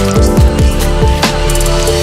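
Electronic background music with a fast, steady beat: kick drums that drop in pitch, sharp snare hits and sustained synth tones.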